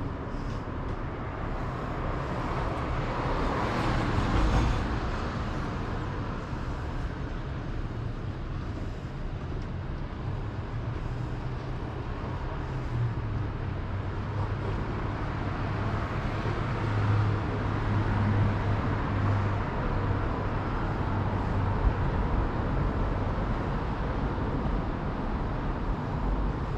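Street traffic: vehicles driving past with a steady low hum, swelling as a vehicle passes about four seconds in and again for a few seconds past the middle.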